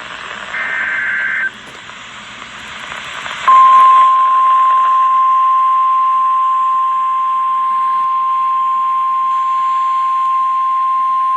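A burst of SAME emergency-alert digital data, about a second of buzzy warbling tones, then a couple of seconds of radio hiss. Then the NOAA Weather Radio 1050 Hz warning alarm tone comes on at about three and a half seconds: one loud, steady, unbroken high beep, the signal that a warning follows.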